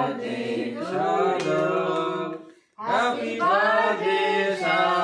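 Several voices chanting together without instruments, in long held notes, with a short break about two and a half seconds in.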